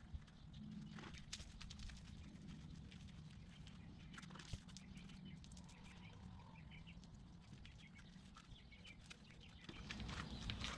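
Faint outdoor background: a low steady rumble with scattered light clicks and a few faint bird chirps.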